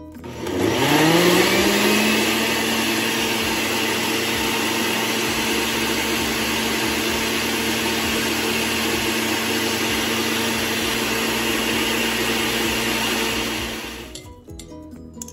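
Countertop blender blending grapes into juice: the motor starts with a whine rising in pitch over about two seconds, runs steadily for about eleven seconds, then winds down and stops shortly before the end.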